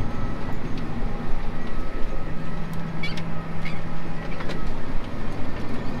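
John Deere tractor engine running steadily at working revs, heard from inside the cab as a dense low rumble, with a steady hum that comes in about two seconds in and drops out past the middle, and a few light clicks.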